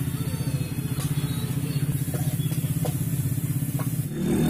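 Motorcycle engine idling close by with a fast, even throb, over a few faint clicks of a spatula on a wok. Near the end the engine revs up, rising in pitch and getting louder.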